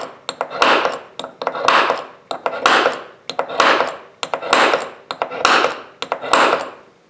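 Harbor Freight automatic center punch pressed down and snapping about once a second, seven times in a row. It fires on every press: the cleaned, smoothed and oiled mechanism now works reliably.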